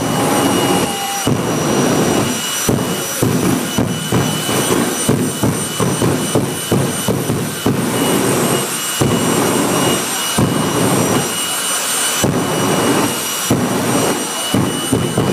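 Jet dragster's turbine engine running hard at the start line with its afterburner lit, a loud rough roar that pulses and surges irregularly over a steady high whine.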